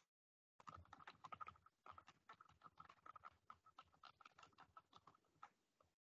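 Faint computer keyboard typing: a quick, uneven run of key clicks that starts about half a second in and stops shortly before the end.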